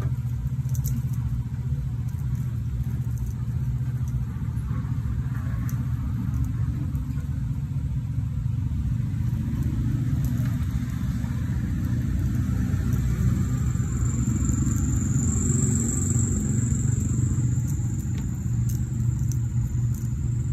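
A steady low rumble with faint scattered clicks; a thin high whine comes in about 13 seconds in and fades near the end.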